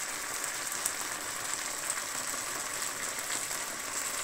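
A wide pan of rice simmering in its broth: a steady crackling sizzle with tiny pops, the last bubbling of the liquid as the rice finishes cooking.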